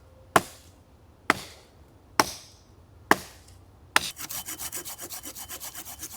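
Four sharp knocks about a second apart, then a Silky Pocketboy folding hand saw starts cutting through a branch in quick, even back-and-forth rasping strokes.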